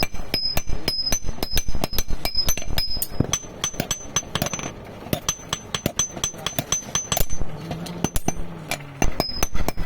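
Hand hammers striking hot iron on an anvil in a rapid run of blows, several a second, each with a bright metallic ring. The blows are louder in the first few seconds and lighter through the middle.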